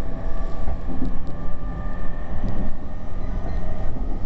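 JR East E231 series electric train running, a loud low rumble overlaid with steady whining tones from its 3-level IGBT VVVF inverter traction system.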